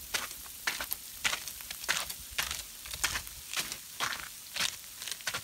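Footsteps on a thin layer of snow over a slatted wooden boardwalk, short scuffing steps about two a second.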